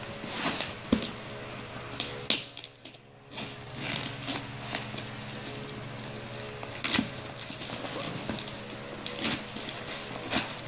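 Scissors cutting through cling wrap and bubble wrap around a box: irregular crackling and crinkling of the plastic with sharp snips, pausing briefly about two and a half seconds in.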